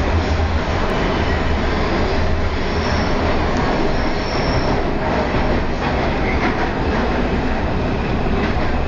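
Subway train running at speed: a steady loud rumble and rattle of the wheels on the track. A faint high wheel squeal comes in briefly about three seconds in and again a second later.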